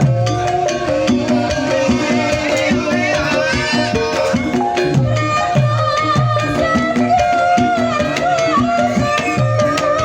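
Javanese gamelan music for an ebeg horse trance dance: hand drums play a driving rhythm of low strokes that drop in pitch, under ringing metallophone tones and a wavering melody line.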